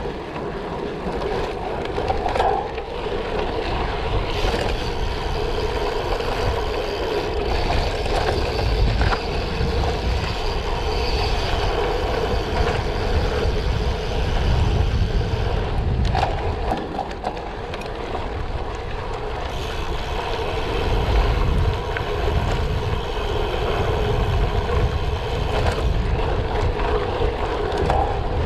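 Tyres of a 2021 Specialized Diverge Comp Carbon gravel bike rolling and crunching over a gravel road, with wind buffeting the microphone. The noise swells and eases over the whole stretch, with no break.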